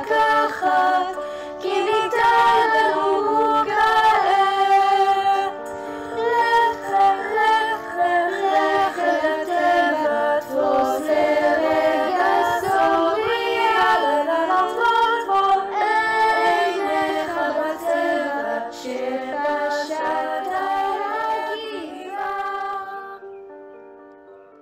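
Children's choir singing a song, several voices together, fading out over the last few seconds.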